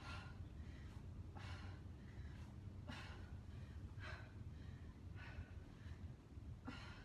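A woman breathing hard from exertion: about six faint, heavy breaths at an even pace, one every second or so.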